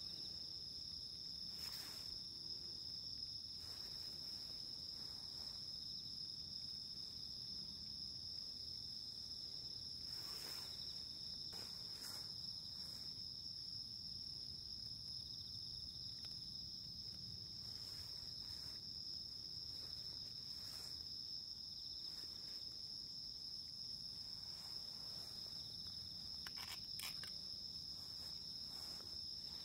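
Insects trilling in a steady, unbroken high-pitched drone, with a few faint clicks here and there.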